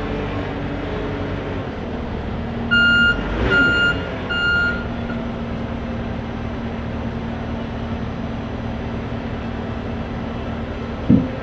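Skid steer loader running steadily while its reversing alarm beeps three times in quick succession, about three seconds in. A short, loud thump comes near the end.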